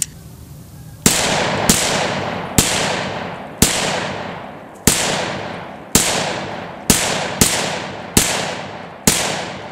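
Ten shots from a ported Glock 31C pistol in .357 SIG with its compensated barrel, fired at an uneven pace about half a second to a second apart. Each shot trails off in a long echo.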